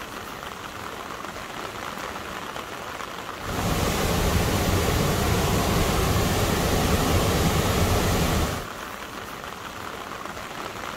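Steady hiss of rain and running water. From about three and a half seconds in to about eight and a half seconds, it cuts abruptly to a much louder, deep rushing roar of a brown flash-flood torrent pouring over a weir, then cuts back to the steady rain hiss.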